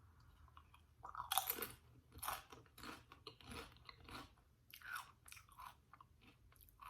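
Doritos tortilla chips being chewed close to the microphone: a run of crisp crunches, starting about a second in and coming roughly twice a second.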